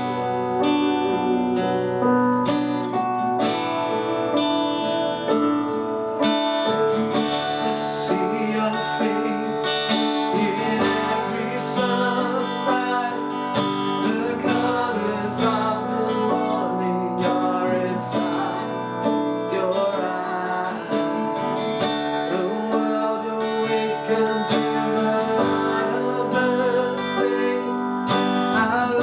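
Worship music with a strummed acoustic guitar and sustained chords, with some faint singing or humming in places.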